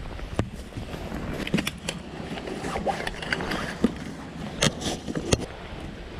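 Sharp clicks and small knocks, about half a dozen, as the frame poles and fittings of a folding camping cot are handled and taken apart, over a steady low background noise.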